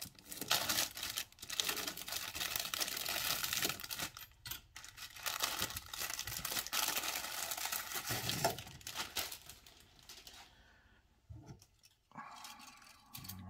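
Clear plastic bag of model-kit sprues being slit open with a hobby knife and pulled apart: dense crinkling and tearing for about ten seconds, then quieter, with a few light knocks as the plastic sprues are handled near the end.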